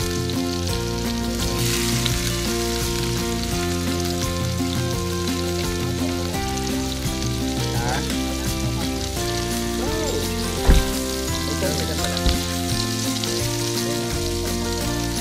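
Food sizzling as it fries in a pan, a steady hiss, with background music. Two short knocks come late on, a little over a second apart.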